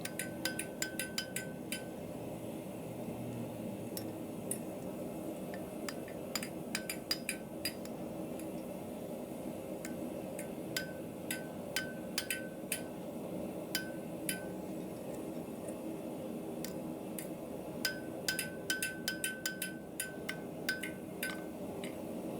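Light, quick hammer blows on a small bar of pure iron against an anvil, coming in clusters with pauses between. Many strikes carry a short, bright ring, as the edges of a forged square corner are dressed. A steady hum runs underneath.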